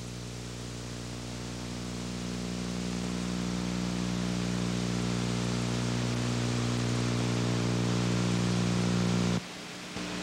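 Steady electrical hum with many overtones under a hiss, growing slowly louder, on a videotape's audio track between programmes; it drops off abruptly about nine seconds in, leaving a fainter hum.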